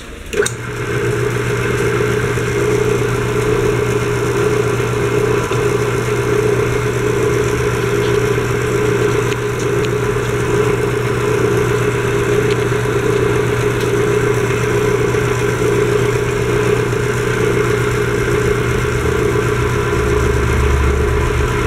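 Homemade wood lathe driven by a washing-machine motor through a pulley, switched on about half a second in and spinning up, then running steadily with a steady hum. It is being tested after the motor-end spindle and bearing were repaired, and the owner believes it is running well.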